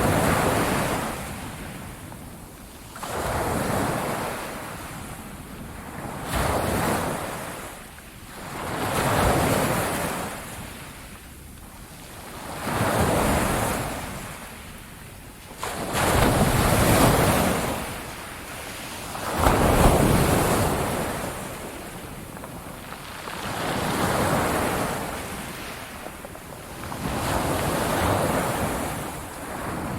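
Ocean surf: waves break and wash in one after another, about every three to four seconds, each a swell of rushing noise that rises and falls away.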